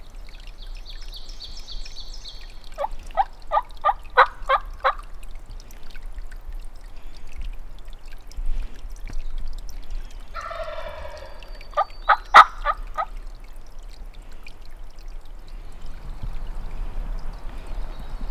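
Hen turkey yelps made on a mouth diaphragm call, two runs of about six or seven sharp notes, and a wild turkey gobbler gobbling in between.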